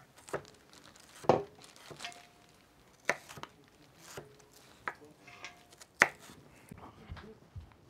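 Kitchen utensils tapping and clinking at irregular intervals, about one sharp knock a second: a metal sieve and stainless mixing bowls knocking together while beaten eggs are strained into an earthenware pot.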